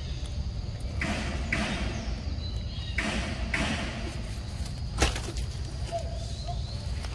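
Scattered rustles in forest undergrowth, coming in pairs, with a single sharp snap about five seconds in, over a steady low rumble.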